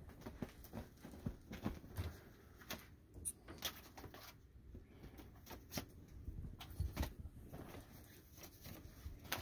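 Faint, irregular rustling and soft thumps of a cat pouncing and pawing at a string toy in bed covers, with scattered small clicks.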